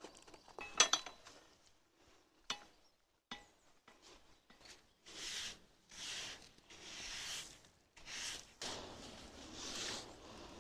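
A few sharp metallic clinks with a brief ring in the first few seconds as garden tools knock together, then a run of rough scraping or brushing strokes about once a second.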